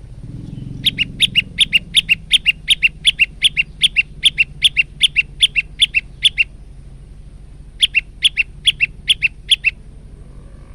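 Male prenjak lumut singing: a rapid train of sharp, evenly repeated chirps, about four a second, that stops for a moment and then picks up again for another couple of seconds.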